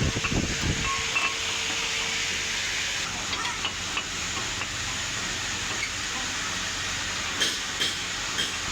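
Steady hiss, with a few short clicks near the end.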